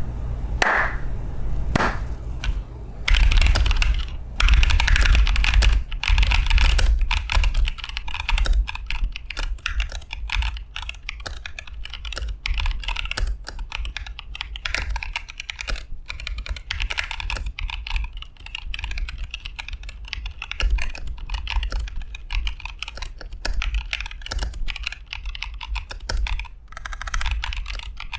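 Typing on a Flygone60 Rev 4 60% custom mechanical keyboard fitted with Boba U4T tactile switches. A few separate keystrokes in the first three seconds, then a fast, continuous run of keypresses.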